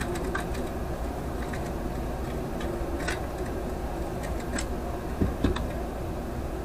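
Light metal clicks and clinks of magnetic welding squares and small sheet-metal pieces being shifted and set down on a metal table, with two louder knocks about five seconds in, over a steady low hum.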